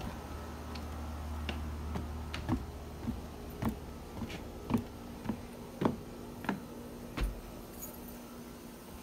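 Footsteps climbing deck stairs and crossing the landing: about ten dull taps, roughly two a second, stopping a little before the end.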